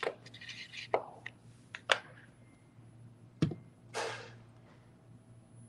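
A few sharp plastic clicks and a dull knock as a Posca paint pen is uncapped and the cap is set down on the table, then a brief swish about four seconds in as a styrofoam pumpkin is turned on the paper-covered table.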